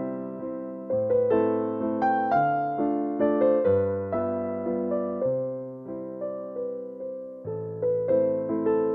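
Gentle background piano music: a slow melody of struck notes that each fade away, over low bass notes.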